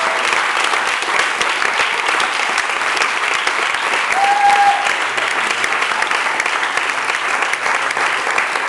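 Audience applauding steadily, with one short high call from the crowd about four seconds in.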